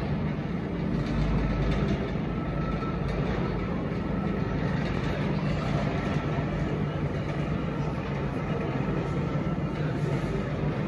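Railway locomotive turntable rotating under power, giving a steady low mechanical hum and rumble from its drive.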